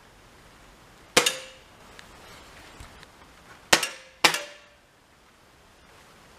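Air rifle firing: three sharp cracks, one about a second in and then two half a second apart near four seconds, each with a brief metallic ring.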